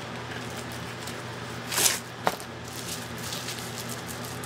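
Plastic packaging on an eyeshadow palette being worked open by hand: a loud rustle about two seconds in, a sharp click just after, then light crinkling, over a steady low hum.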